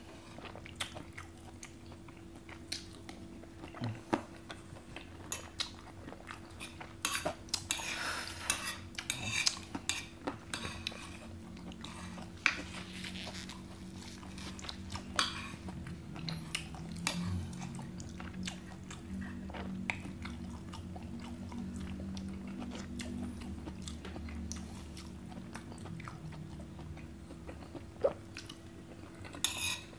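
Close-miked eating: chewing, with scattered clinks and scrapes of a metal spoon against a plate, over a steady low hum.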